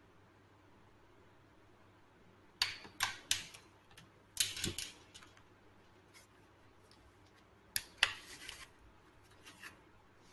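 Small hand tools being handled: a quick run of sharp clicks and short rattles about two and a half seconds in, a longer rattle just after four seconds, and another near eight seconds.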